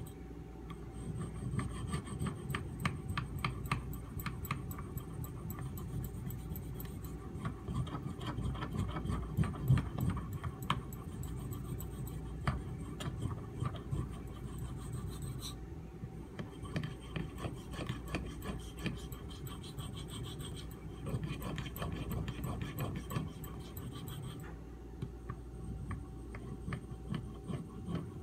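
CPM 3V steel knife blade being sharpened on a Shapton Pro whetstone: rapid, repeated scraping strokes of steel on stone, with a couple of brief pauses.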